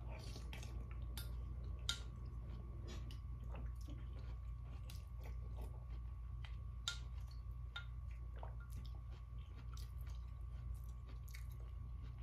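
A person eating from a bowl with a spoon: scattered small clicks of the spoon against the bowl, with chewing, over a steady low hum.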